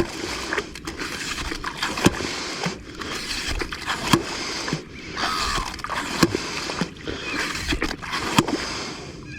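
Yabby pump being worked in wet sand to pump up nippers: a steady rushing noise with short knocks about once a second as the pump is plunged and pulled.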